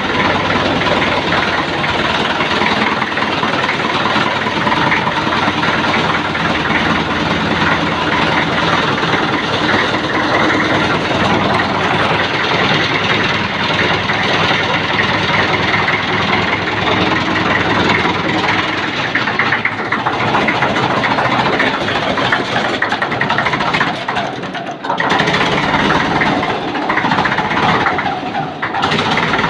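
Old tractor engine running at idle, steady throughout, with two brief dips in level near the end.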